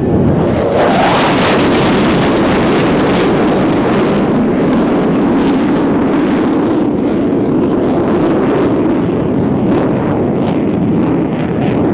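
Panavia Tornado's twin RB199 jet engines as the jet pulls up into a steep climb: a loud, steady jet roar that swells sharply at the start, with crackling running through it.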